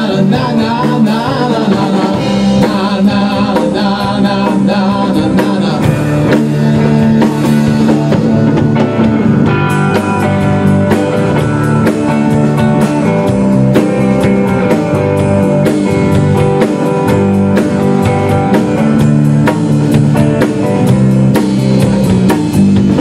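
Rock band playing loud: a drum kit with cymbals, and electric guitars.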